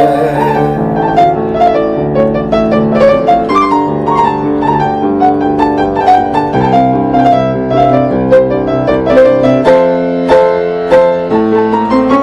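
Solo piano playing an instrumental interlude: a continuous flow of melody notes over sustained chords, with no voice.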